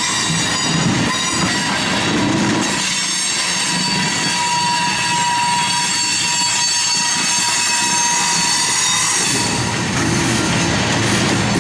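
Loaded coal hopper cars of a freight train rolling past at close range: a steady rumble and clatter of wheels on rail. Over it runs a continuous high-pitched squeal from the wheels, strongest in the middle.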